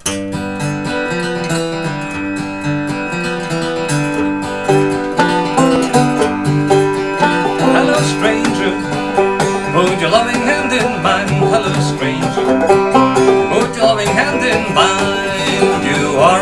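Open-back banjo played clawhammer style together with a strummed and picked acoustic guitar, an old-time instrumental intro. The playing gets louder about five seconds in.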